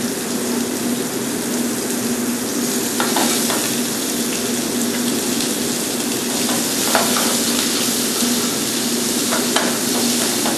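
Head-on shrimp frying in smoking-hot olive oil in a stainless steel sauté pan: a steady, loud sizzle, with a few light clicks.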